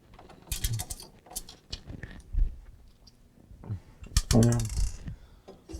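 Irregular clicking and rattling of small metal parts being handled during the teardown of a desktop computer case, with a short burst of voice about four seconds in.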